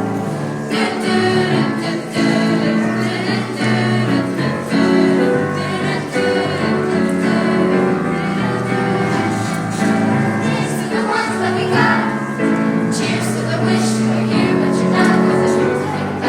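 Music with a choir of voices singing in long held notes.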